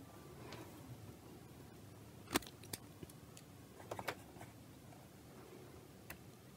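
A few faint clicks and light taps of small items being handled on an electronics workbench, over quiet room tone; the sharpest click comes a little over two seconds in.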